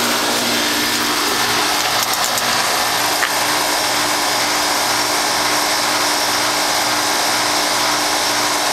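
1996 Carrier 5-ton straight-cool central air conditioner condensing unit running steadily: the steady rush of the condenser fan with the hum of its Copeland scroll compressor, a low hum that throbs about twice a second.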